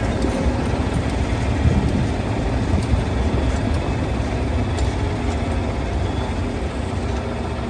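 Farm tractor engine running steadily as it drives, towing a hay wagon, heard as a continuous low rumble.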